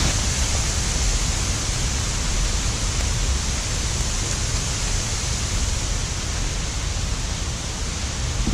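Steady rush of running water, an even, unbroken noise.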